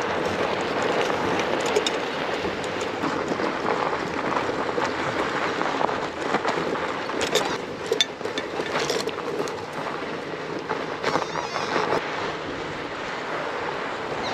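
Steady rushing noise of a loaded fat bike being ridden over a sandy dirt track, tyre and wind noise together, with a few sharp clicks and rattles from the bike.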